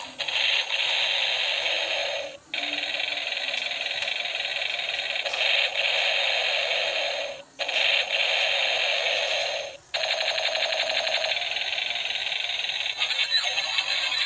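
Battery-operated transforming toy tank running and playing its electronic sound effects through a small, tinny built-in speaker. The effects are cut by short breaks about two and a half, seven and a half and ten seconds in, and turn into a fast rattling pattern near the end.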